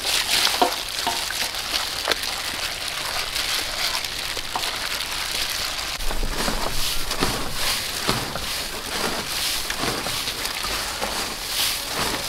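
Hands working chicken pieces in wet batter in a steel bowl, then scooping and tossing dry breadcrumbs on a metal tray: a steady crackly rustle with many small ticks.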